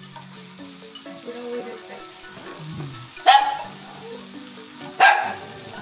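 Chicken skin sizzling as it fries, under background music; a dog barks twice, loud and sharp, about a second and a half apart.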